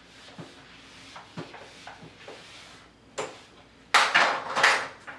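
A few faint clicks, then a whiteboard eraser scrubbing across the board in several quick, loud strokes near the end.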